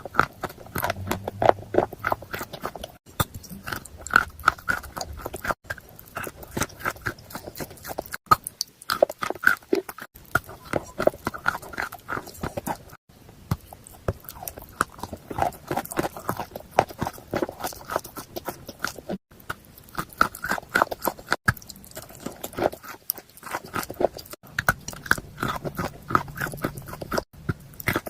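Close-miked chewing of dry edible chalk with paste: dense, rapid crunching and crackling, broken by short pauses every few seconds.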